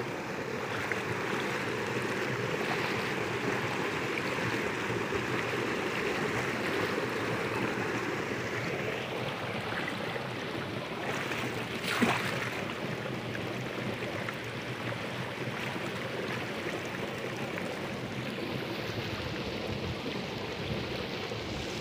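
Water rushing steadily through a narrow concrete irrigation channel, with one brief, louder hit about halfway through.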